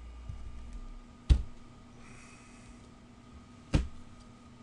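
Two sharp taps about two and a half seconds apart, as trading cards are set down on a stack on the table.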